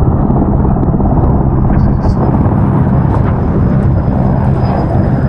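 Firefighting helicopter flying close by, its rotor and engine noise a loud, steady low drone.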